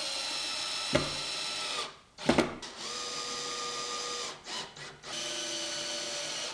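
Cordless drill-driver driving screws into a board: three runs of steady motor whine, each one to two seconds long, with short pauses between them. A sharp knock comes a little after two seconds in.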